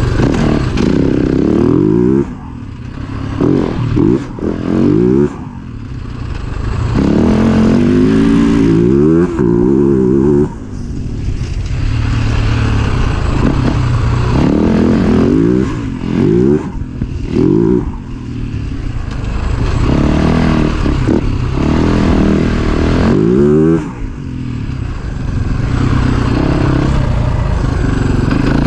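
Husaberg FE 450's single-cylinder four-stroke engine revving hard as the dirt bike is ridden. The pitch rises again and again through the revs, and the throttle is shut off briefly several times, the loudness dipping each time.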